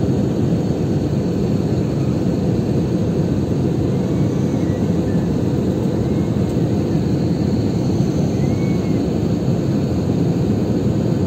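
Steady low drone of a jet airliner's cabin in flight: engine and airflow noise heard from a window seat.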